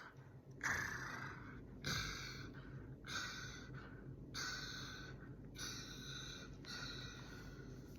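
Audible breathing close to the microphone: a run of breathy exhales, about one a second.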